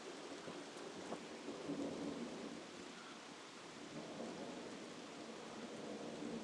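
Steady rain falling, with a low rumble of thunder swelling and fading twice.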